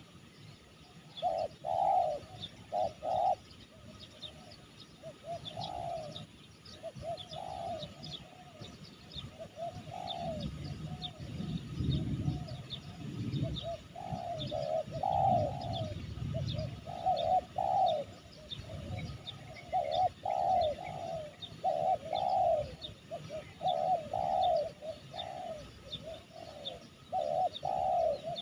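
Spotted doves cooing in repeated phrases, a caged decoy and a wild dove answering each other. Small birds chirp high and fast in the background.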